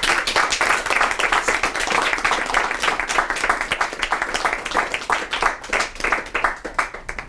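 Applause from a small audience: many hands clapping at once, dying away near the end.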